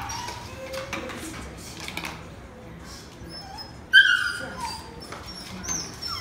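Puppies whining and whimpering in high thin tones while waiting for treats, with one loud, short yelp about four seconds in.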